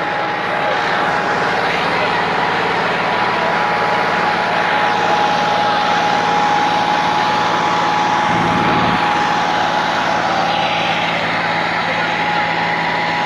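Farm tractor's diesel engine running steadily, with a steady high whine over it and people's voices mixed in.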